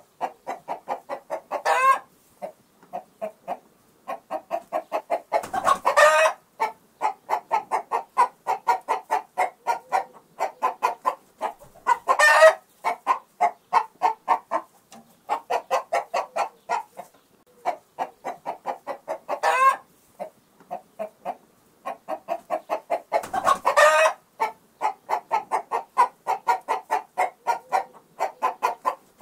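Hen cackling: a fast, even run of short clucks, about five a second, broken every few seconds by a louder, drawn-out 'bwak' call.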